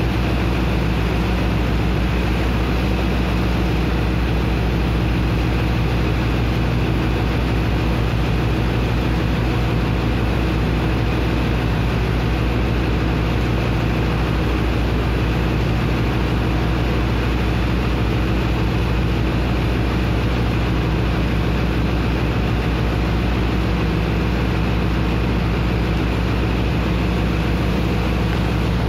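Heavy engine of a sand-dredging pump running at a steady, unchanging drone, with the rush of water jetting into and churning the sand slurry.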